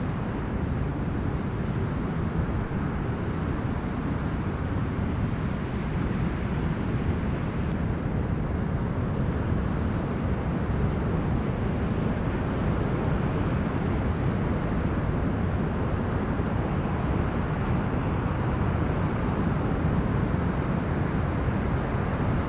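Strong storm wind blowing on the microphone over breaking sea waves: a steady low rushing noise with no breaks.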